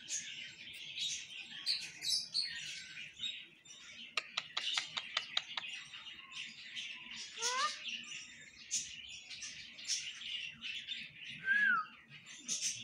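Rose-ringed parakeet chattering and chirping, with a quick run of sharp clicks about four seconds in and a few short whistled glides later.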